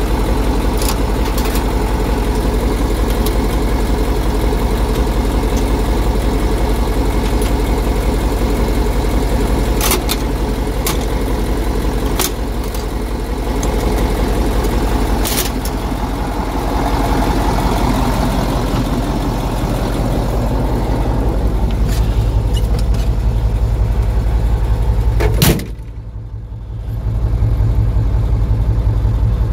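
Off-road truck engine idling steadily, with a few sharp metallic clicks along the way and one loud bang near the end.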